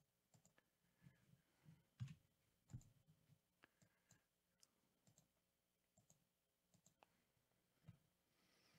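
Faint, irregularly spaced clicks of a computer mouse, about a dozen, over near silence.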